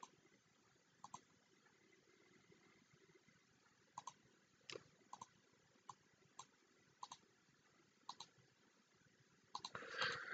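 Faint clicks of a computer mouse, about a dozen spread irregularly, many as quick double clicks of press and release, with a brief louder rustle near the end.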